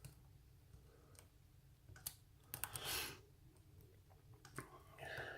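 Faint, scattered clicks of a hook pick working the pins of a Euro cylinder lock held under tension, with a brief soft rustle about three seconds in.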